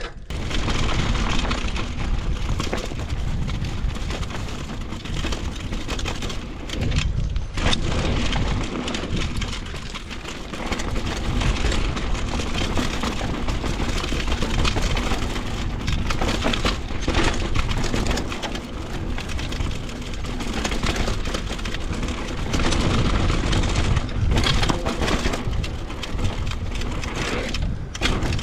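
Mountain bike riding over a dirt trail: the tyres crunch and crackle over dirt and stones, and the bike rattles, under steady wind rumble on the helmet camera's microphone.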